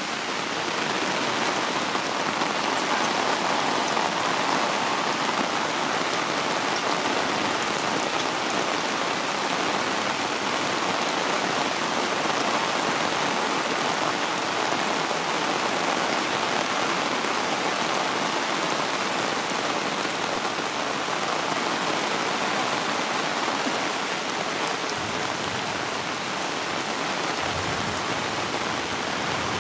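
Heavy rain falling steadily on wet concrete and surrounding vegetation, a constant even hiss of drops.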